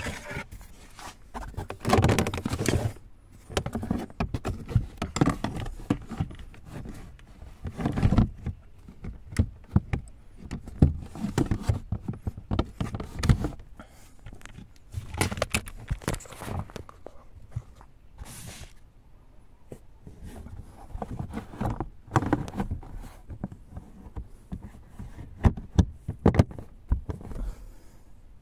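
Irregular knocks, thuds and clicks with short bursts of rustling, like objects being handled and set down, at uneven intervals.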